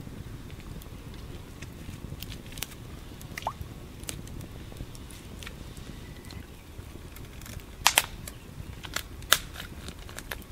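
Campfire crackling: scattered sharp pops, the loudest a quick pair about eight seconds in and another just after nine seconds, over a steady low rumble.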